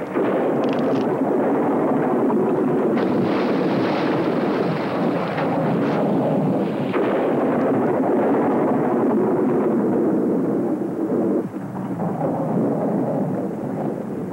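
Cartoon storm sound effects: heavy rain and wind with thunder, loud throughout, with a few sharper cracks in the first half.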